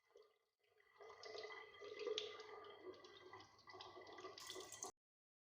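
Water running, as from a tap, with small clicks and knocks mixed in; it starts faintly, gets stronger about a second in, and cuts off suddenly near the end.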